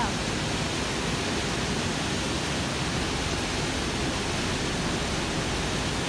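Steady rushing of a river waterfall, white water falling about 25 feet over rocks into a gorge.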